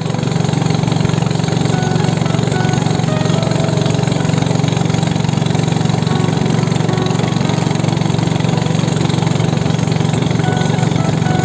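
Small boat engine running loudly and steadily at constant speed, with no change in pitch.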